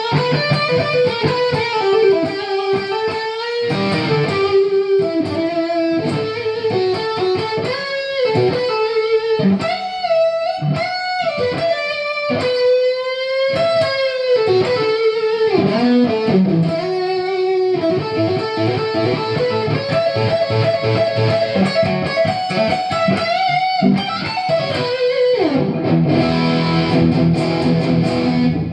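Electric guitar, a Gibson Les Paul Standard with Burstbucker pickups, played through an amp: single-note lead lines with string bends and a held note with vibrato about halfway through, moving to fuller chords near the end.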